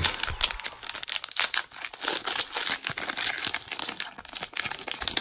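Foil wrapper of a Pokémon TCG booster pack crinkling and tearing as it is handled and ripped open, a dense run of crackles.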